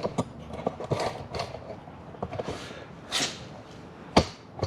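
Scattered light clicks and clatter of parts and tools being handled in a garage, with a short scraping swell about three seconds in and one sharp knock near the end.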